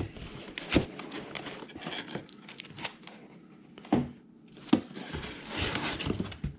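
Crossbow packaging being handled in its box: rustling and crinkling with scattered light knocks, and a louder stretch of rustling near the end.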